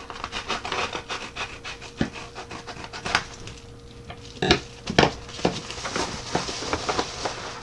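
A mailing package being handled and opened: fast crinkling and rustling of the packaging, broken by several sharp clicks and knocks.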